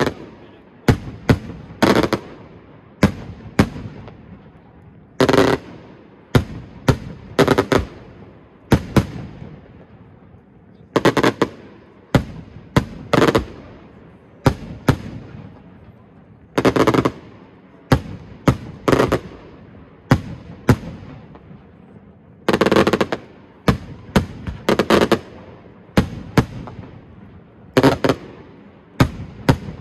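Aerial fireworks bursting overhead in loud bangs, mostly in quick clusters of two to four, a cluster every second or two, each followed by a short echo.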